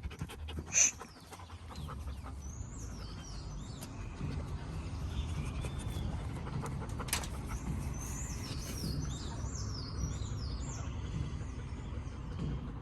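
Outdoor birds chirping: many short, high, falling chirps in quick runs, over a steady low rumble. A single sharp high squeak comes about a second in and is the loudest sound.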